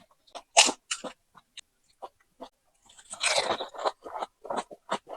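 Close-miked eating of pani puri: crisp hollow puri shells crunching as they are bitten and chewed, with sharp crunches near the start, scattered small clicks, and a longer, denser stretch of crunching and chewing about three seconds in.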